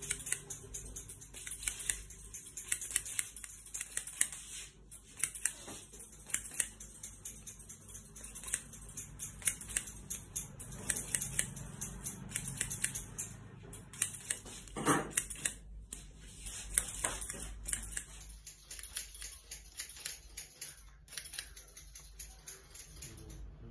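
Barber's scissors snipping through wet hair, with many quick blade clicks in runs.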